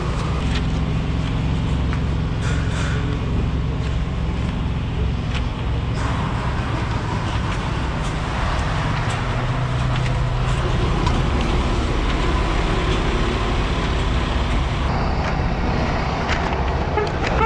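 Diesel semi-truck engine running steadily, a continuous low hum with a noisy haze over it.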